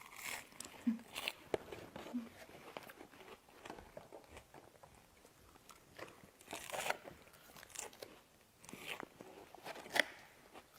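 Quiet, irregular crunches and clicks close by, with no steady rhythm.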